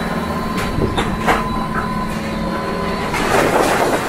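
A sailing yacht's engine drones steadily under the rush of water in rough, breaking waves, with a few sharp knocks in the first second and a half. A little after three seconds a louder surge of water washes past as a following wave goes by.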